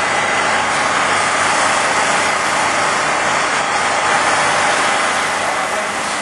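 A vehicle engine running steadily under a loud, even hiss that does not change.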